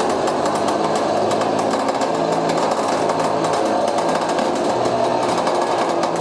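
Vehicle winch running steadily under load, reeling in its cable to pull a car, with a fast, even mechanical clatter.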